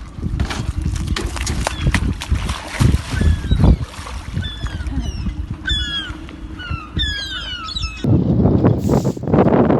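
Irregular knocks and handling noises, with a bird calling in short falling chirps over and over midway. About eight seconds in they give way abruptly to a steady rushing noise like wind on the microphone.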